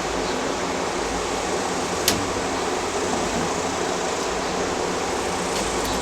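Steady, even rushing noise, with one sharp click about two seconds in.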